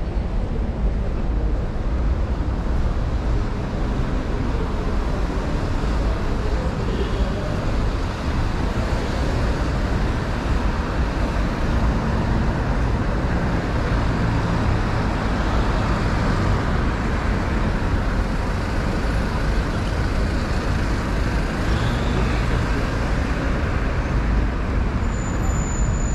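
Steady city street traffic: the even rumble of passing vehicles, with no single sound standing out.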